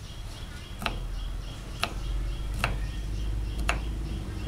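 Kitchen knife cutting through a carrot onto a wooden chopping board: four sharp knocks about a second apart.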